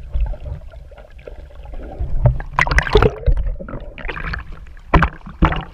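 Muffled underwater rumble and bubbling on an action camera held by a snorkeler. It turns to loud, irregular splashing and sloshing about two seconds in as the camera breaks the surface, with a couple of sharp splashes near the end.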